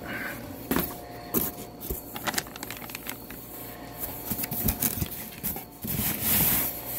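Packaging being handled: a plastic bag crinkling and rustling against cardboard, with scattered small knocks and taps, and a longer stretch of rustling about six seconds in.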